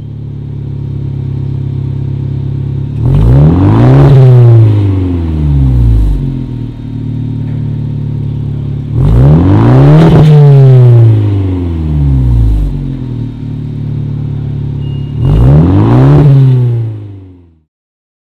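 Abarth 124 Spider's 1.4-litre turbocharged inline-four, fitted with an aFe Power axle-back exhaust, idling and revved three times. Each rev climbs in pitch and falls back to idle, and the sound cuts off just before the end.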